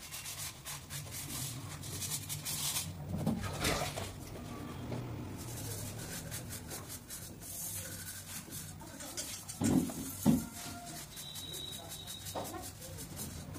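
Dishes being scrubbed with a sponge at a sink: repeated rubbing strokes, with two louder knocks of dishware against the sink about ten seconds in.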